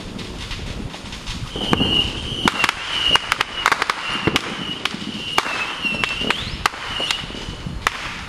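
Fireworks going off: a quick run of sharp cracks and pops starting about a second and a half in, with a high wavering whistle coming and going over them.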